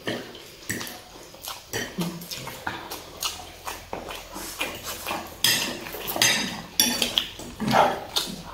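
Forks and spoons clinking and scraping irregularly on plates of chow mein, with noodles being slurped.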